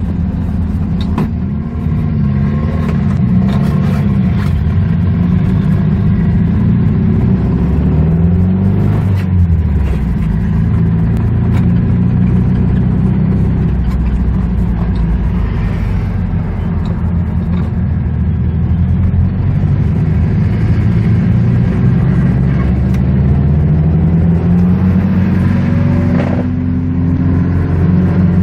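A motor vehicle's engine running and revving, its pitch rising and falling several times and climbing steadily near the end.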